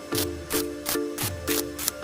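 Background music with a steady beat: deep thumping drum hits under hissy, cymbal-like strokes about three times a second, over a repeating chord.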